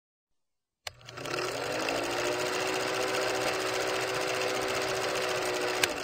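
Old film projector sound effect: a click, then the motor hum rising to speed and settling, with the film clattering through in a rapid, steady rattle; a sharp click near the end.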